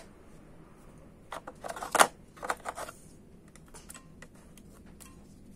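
Batteries being pressed into a plastic digital wall clock's battery compartment: a scatter of short plastic clicks and taps, the loudest about two seconds in.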